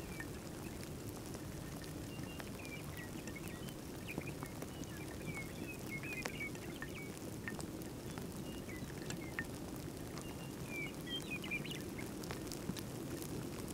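Small birds chirping and twittering in short calls on and off throughout, over a steady low rumble of wind, with faint scattered ticks.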